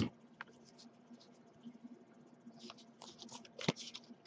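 Faint crinkling and rustling of a foil trading-card booster pack wrapper being torn open by hand, busiest in the last second and a half, with a sharp snap near the end.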